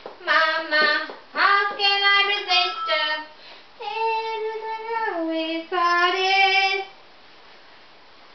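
A young child singing a tune in short high phrases, ending on a few long held notes and stopping about seven seconds in.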